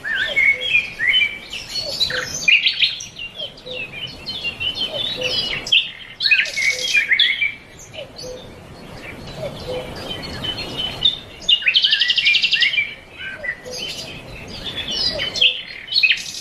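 Songbirds chirping and singing together, a dense mix of short high chirps with a fast trill about twelve seconds in, over a soft lower note repeating about once a second.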